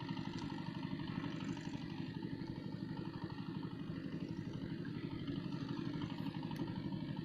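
A small engine running steadily at idle, with a rapid, even putter.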